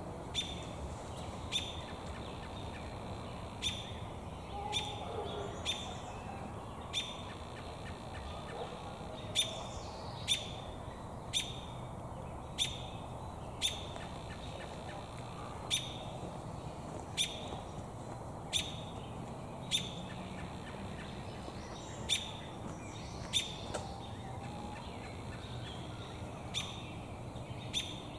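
American robin giving short, sharp chirps over and over, roughly once a second with a few longer gaps, while holding a beakful of damselflies.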